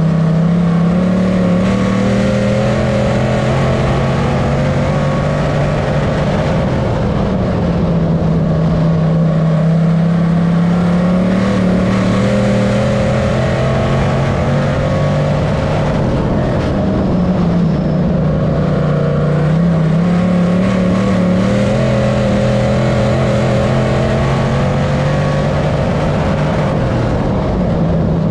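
A dirt-track modified race car's GM 602 crate small-block V8 running at racing speed, heard from inside the cockpit. The engine pitch climbs and then dips, again and again, every several seconds, as the car goes down the straights and through the turns.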